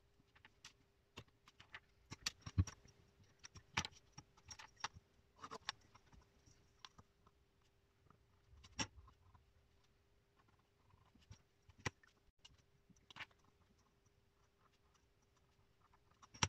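Marker pen and steel ruler handled on paper while lines are drawn: scattered light taps and clicks with soft rustling, the sharpest knocks about a third of the way in and again past halfway. A faint steady hum runs underneath.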